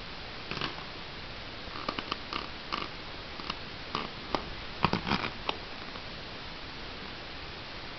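A dog sniffing at close range in a run of short, irregular sniffs, the loudest about five seconds in.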